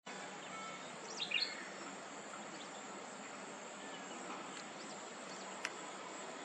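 Steady rural outdoor ambience, an even hiss, with a quick run of bird chirps about a second in and one brief tick near the end.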